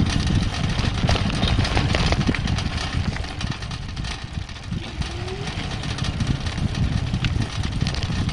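Wind buffeting the microphone and tyre noise on asphalt from a bicycle riding along, with a few small clicks and rattles; the noise eases briefly about four seconds in.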